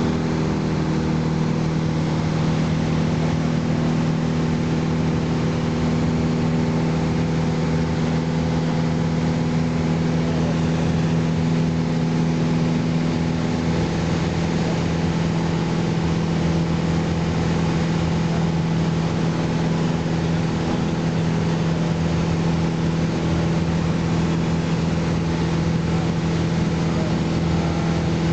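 Piper PA-28 Warrior's four-cylinder Lycoming engine and propeller droning steadily in flight, heard inside the cabin. One of its steady tones drops out about halfway through, while the overall level stays even.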